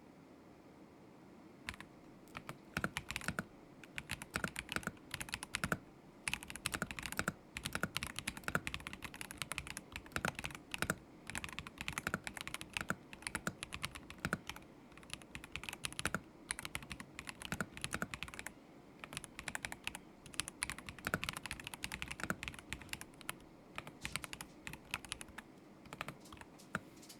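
Typing on a KZZI K75 Pro mechanical keyboard with Moment linear switches: quick runs of keystrokes broken by short pauses, starting about two seconds in.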